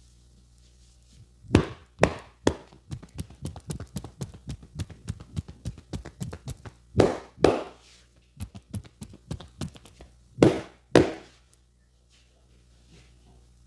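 Hands striking a client in a champi head massage: a few loud chopping slaps, then a quick run of lighter taps at about four or five a second, broken by loud slaps in pairs.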